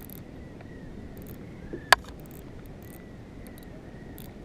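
A single sharp click about two seconds in, over faint steady background noise with a few faint high ticks.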